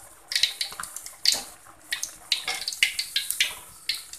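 Shrimp fritter deep-frying in hot oil in an aluminium wok: sizzling and crackling that comes in uneven bursts.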